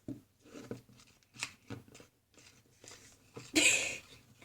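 Slime mixture of glue and borax water being stirred as it begins to thicken: irregular wet squishing and scraping strokes, with a longer, louder squelch near the end.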